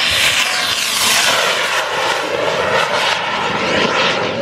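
Three-motor cluster of Aerotech H hobby rocket motors burning at liftoff: a loud, steady rushing roar whose tone sweeps as the rocket climbs away.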